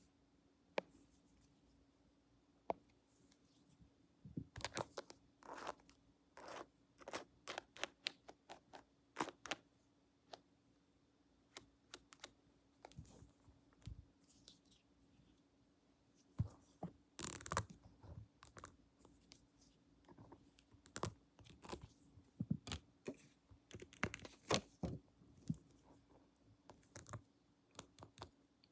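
Close-miked ASMR role-play sounds: irregular crisp clicks, taps and scratches from tools and hands, in quick clusters from about four seconds in, over a faint steady hum.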